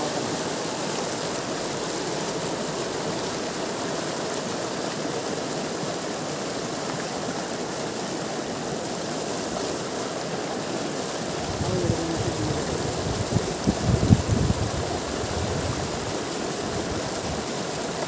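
Fast river water rushing and foaming over rocks, a steady rushing noise. A few low thumps come about two-thirds of the way through.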